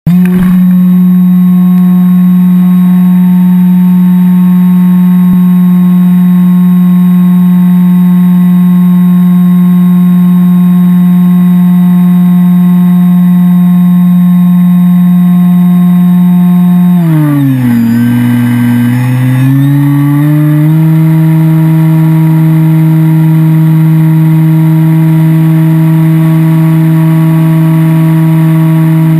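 Multiplex EasyStar II's electric pusher motor and propeller running at a steady pitch, heard from a GoPro mounted on the plane. About 17 seconds in, the pitch drops as the motor slows, then climbs back about three and a half seconds later.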